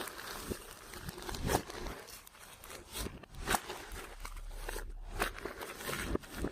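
Clear slime being squished and worked by hand, giving irregular sticky crackles and pops.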